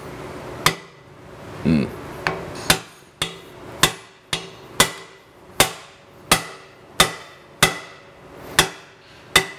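Hammer blows on the driver bar of a cam bearing installation tool, driving a cam bearing into its bore in an engine block. About thirteen sharp, ringing metal strikes come roughly every half to three-quarters of a second. The bearing is an interference fit, almost too big for the hole, so it is tapped in blow by blow.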